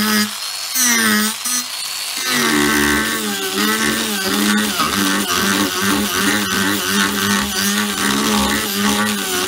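Angle grinder fitted with a King Arthur's Tools 50 mm, 8-tooth mini chainsaw disc, running and carving into a block of wood. The motor's whine dips and recovers in pitch for the first two seconds, then settles into a steadier, heavier cut.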